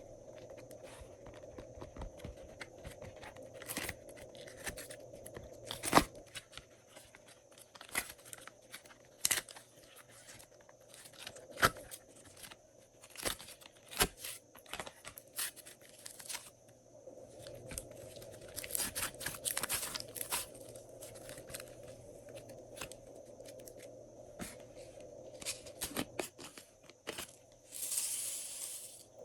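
Glossy slime being mixed and stretched, giving irregular sticky clicks and pops, with a longer crackling stretch near the end.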